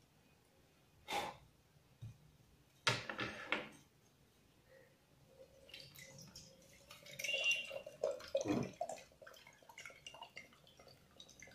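Coconut water poured from a freshly opened tender coconut into a steel tumbler, trickling and dripping, its pitch rising slightly as the tumbler fills. It is preceded by a few sharp knocks of the coconut and steel tumbler being handled on a table.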